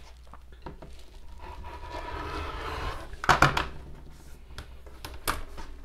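Olfa rotary cutter rolling along a quilting ruler through stacked flannel on a cutting mat: a scraping hiss that grows louder for about two seconds. A clatter of knocks follows a little past the middle as the cutter and ruler are handled and set down, with one more knock near the end.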